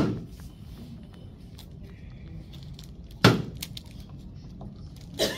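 A thick slab of textured clay slammed down sideways onto a work table, landing with a sharp thud right at the start and again about three seconds later: the slab is being thrown to stretch it and open up and distort its stamped patterns.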